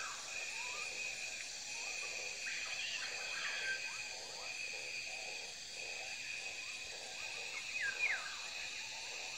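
Nature ambience: a steady insect chorus of crickets, with short chirping bird calls scattered through it, a cluster a few seconds in and another near the end.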